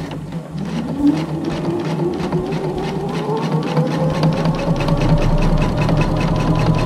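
Domestic electric sewing machine stitching faux leather under a roller presser foot: the motor whine rises in pitch as it speeds up, then holds steady over rapid, even needle strokes, getting louder. The fabric is feeding smoothly.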